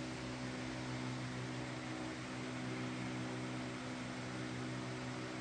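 Steady electrical hum over a faint even hiss.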